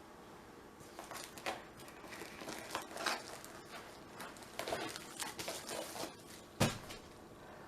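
Packaging of a diamond painting kit crinkling and rustling in the hands in short, scattered bursts, with one sharp knock about two-thirds of the way in.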